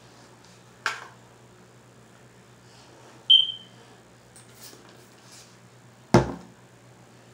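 A pump spray bottle gives a short hiss about a second in. Around three seconds in comes a brief high ping, and near the end a hard thump.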